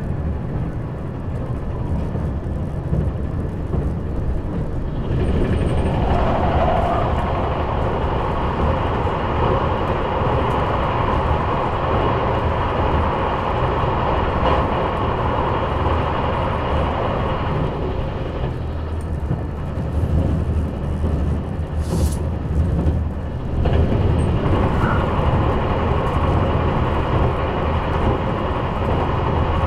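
Cabin running noise of a KiHa 187 series diesel railcar at speed: the diesel engine's deep drone under wheel-on-rail rumble. About five seconds in, the train enters a tunnel and the rushing noise gets much louder. It eases for several seconds about two-thirds of the way through, then comes back.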